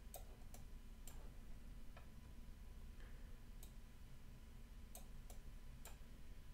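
Faint computer mouse clicks, about eight of them at uneven intervals, over a low steady hum of room tone.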